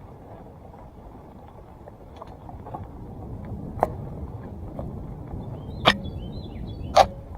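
2017 Salsa Timberjack NX1 mountain bike rolling along a dirt trail: a steady tyre and frame rumble that grows louder through the middle, with three sharp knocks from the bike over the terrain, the last near the end the loudest. A bird chirps a few times near the end.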